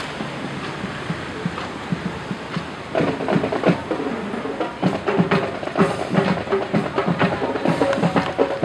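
Marching band playing as it approaches: drums alone at first, then the brass joins in about three seconds in and the music gets louder.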